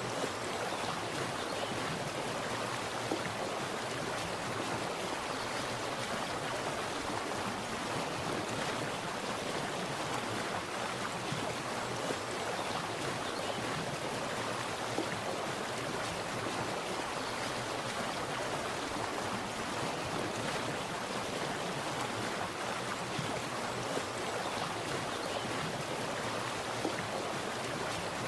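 Water splashing and gurgling in a steady, continuous rush, like a small stream or cascade.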